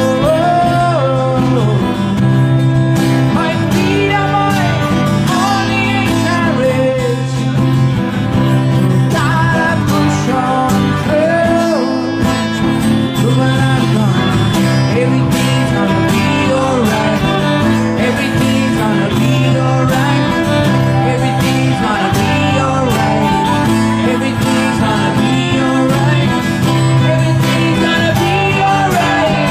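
A song performed live: a voice sings a melody over acoustic guitar accompaniment, in a country or folk style.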